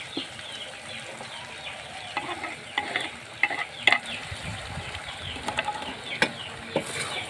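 Sliced potatoes frying in oil in a steel karahi, sizzling, while a perforated steel skimmer stirs them. Over the second half the skimmer scrapes and clanks against the pan several times, the loudest knock about four seconds in.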